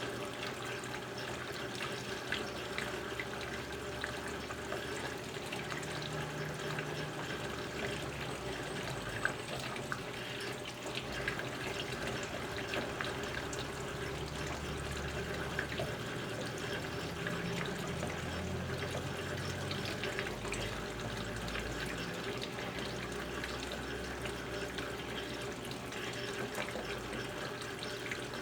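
Brastemp Ative! BWG11 top-load washing machine filling its tub with water: a steady rush of water, with a low hum that comes and goes.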